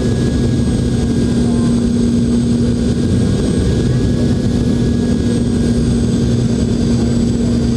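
Loud, steady cabin drone of a Boeing 717-200 descending on approach, heard right beside its tail-mounted Rolls-Royce BR715 turbofan, with a steady low hum running through it.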